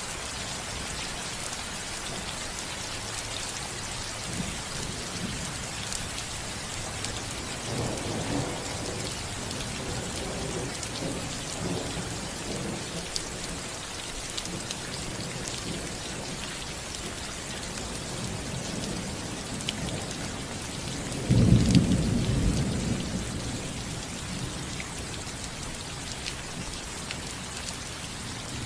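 Steady rain falling on a roof, with a low roll of thunder about a third of the way in and a sudden loud thunderclap about three quarters through that rumbles away over a couple of seconds.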